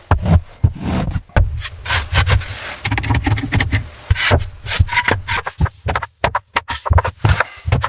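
A busy, irregular run of knocks, rubs and scrapes, with heavy low thuds among them.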